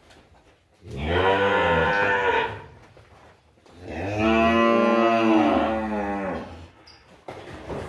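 Calf bawling twice, two long calls that each rise and then fall in pitch, while it is held for deworming.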